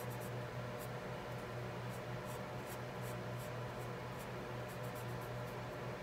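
Ohuhu alcohol marker tip stroking across paper while coloring: quick, soft, scratchy strokes, several a second, over a steady low hum.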